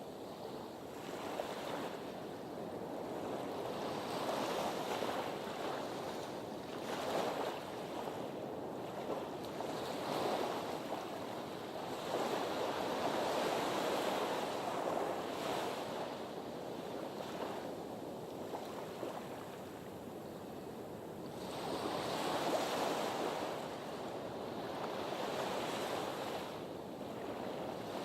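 Sea waves washing against a harbour breakwater, a steady rush of surf that swells and ebbs unevenly every few seconds.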